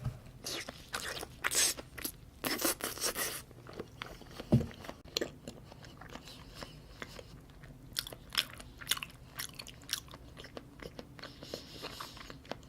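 Close-miked chewing and biting of salmon, with many irregular small mouth clicks and smacks. A cluster of louder bites comes in the first few seconds.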